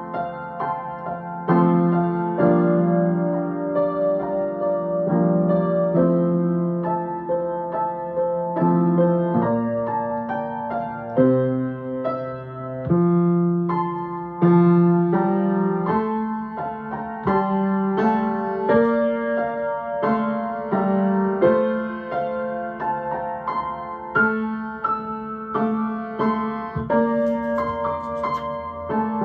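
Yamaha grand piano played solo: a moderately slow piece of held chords and melody notes changing about once a second. A page of sheet music is turned near the end.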